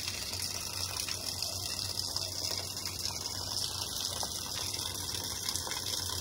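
Heavy downpour of rain falling, a steady even hiss with no breaks.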